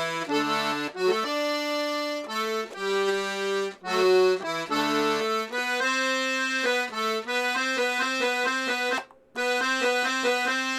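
Paolo Soprani two-row C#/D button accordion with three reeds per note (LMM) playing a tune: held notes for the first few seconds, then a run of quick short notes, with one brief break about nine seconds in.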